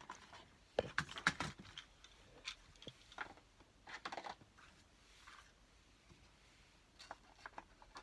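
Scattered light clicks, taps and rustles of craft supplies being handled on a desk as a clear plastic box of paper stickers is put away, with a cluster of clicks about a second in.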